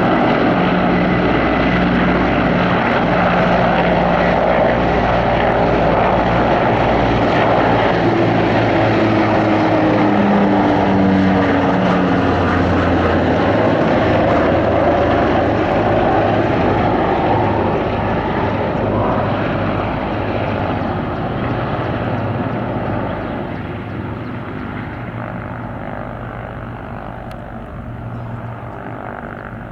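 Propeller aircraft flying past with a steady engine drone; its pitch drops as it passes and the sound then fades away.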